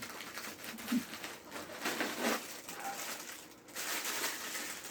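Irregular rustling and crinkling as packaging is handled during unpacking, with a few short low blips.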